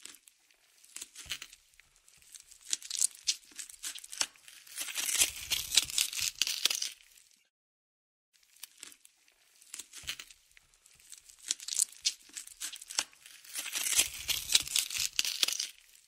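Cutting-flesh horror foley effect: a ripping, crackling run of many sharp clicks. It plays twice, each take about seven seconds long, starting sparse and building to a denser, louder stretch before stopping.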